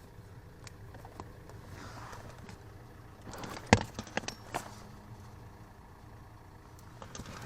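Lexus RX300's V6 engine idling with a steady low hum, and a short cluster of clicks and knocks a little past the middle, the loudest a single sharp click.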